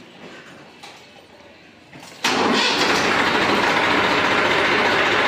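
Massey Ferguson 1035 DI tractor's three-cylinder diesel engine starting: it catches abruptly about two seconds in and then runs steadily and loud.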